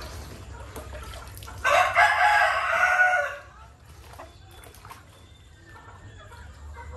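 White rooster crowing once, a single call of nearly two seconds starting about a second and a half in.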